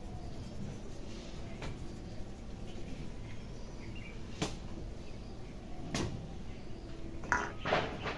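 Hands on a head during an oil head massage: a handful of short, sharp slaps or taps a second or more apart, coming closer together near the end.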